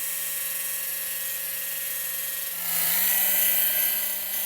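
Power drill spinning a thread tap at a steady speed, a motor whine. About three seconds in, a die grinder joins in, grinding the tap's tapered point off, and the sound gets louder and hissier.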